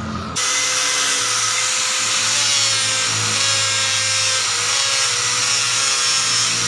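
Angle grinder running steadily against a stainless steel motorcycle muffler, grinding and polishing the welded joint, with a steady whine and a hiss of abrasion. It cuts in abruptly just after the start.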